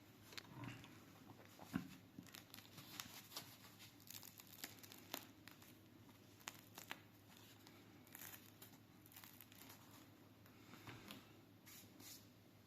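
Crust of a freshly baked loaf of bread crackling faintly as it cools, in scattered, irregular small cracks and ticks: the bread "singing" at the end of the baking process.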